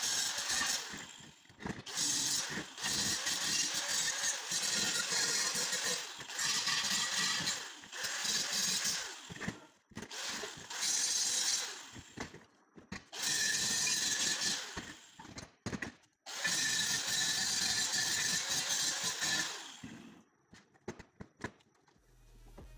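Angle grinder grinding a welded steel square-tube frame in repeated runs of a few seconds each, with short pauses between. Near the end, a few short metallic knocks.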